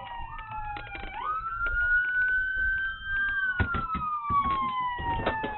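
Two police car sirens wailing out of step with each other. Each falls slowly in pitch for a few seconds, then sweeps sharply back up. Scattered clicks sound over them.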